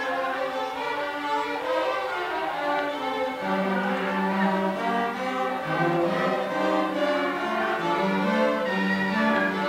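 An orchestra playing classical music with bowed strings to the fore: violins over cellos and double bass, in long held notes. Lower parts come in about three and a half seconds in and deepen again around six seconds.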